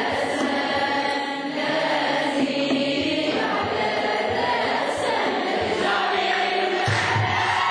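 A congregation sings an Ethiopian hymn together, many voices in unison. About seven seconds in, a drum starts beating low and steadily under the singing.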